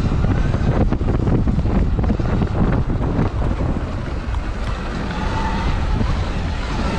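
Wind buffeting the microphone as a Sur-Ron Light Bee electric dirt bike is ridden off-road, with a few sharp knocks and rattles from the bike over rough ground.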